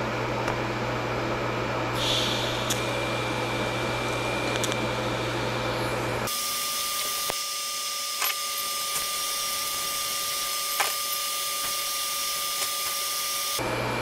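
TIG welding arc on a steel tube housing: a steady hum for the first six seconds or so, then a thinner hiss with a few faint ticks, and the hum returns just before the end.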